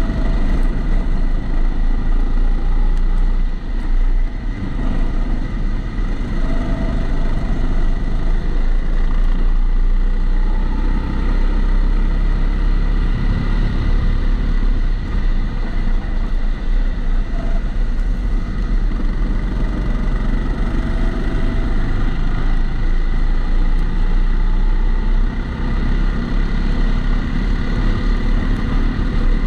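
Kombikart Eco kart engine running as the kart laps, its pitch rising and falling with the throttle, picked up by an onboard camera in a protective housing, with a steady high whine throughout.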